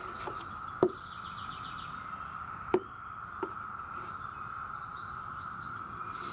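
Metal putty knife working wood filler into holes in weathered deck boards, with two sharp clicks of the blade on the wood, about a second in and near the middle, and a softer one just after. Birds chirp in the background over a steady high outdoor drone.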